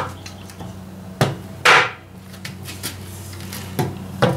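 Hammer blows on a 2x4 wood block set on top of an ABS pipe, driving a new seal into the hub of a Ford 2N tractor's brake drum. The blows come irregularly, about five of them, the heaviest a little under two seconds in.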